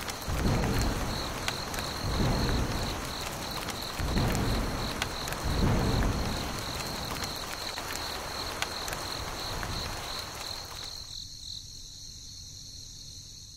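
Insects chirping in an even, high-pitched pulsing trill, about three chirps a second, over a steady hiss with a few low swells. The low swells and hiss fall away near the end while the chirping carries on.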